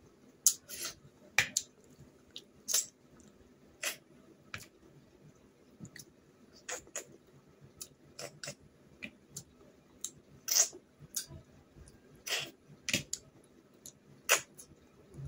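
Snails in curry being sucked out of their shells and eaten: short, sharp slurps and clicks at irregular intervals, about one a second, with chewing in between.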